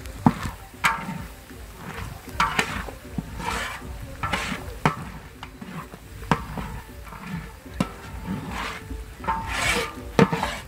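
Long-handled spatula stirring and scraping a dry, powdery mix around a large metal wok, in irregular scrapes roughly once a second with a few sharp clicks against the pan.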